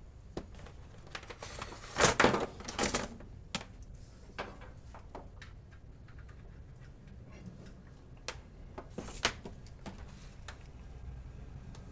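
Handling noises from working on a range hood: scattered clicks and knocks of its parts, with a louder scraping, rattling cluster about two seconds in and another shorter one near nine seconds, over a faint low steady hum.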